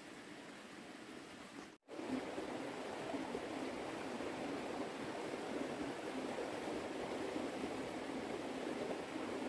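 Steady, even rushing ambient noise with no distinct events, like a forest stream or wind in the trees. It drops out for an instant about two seconds in, then comes back louder than before.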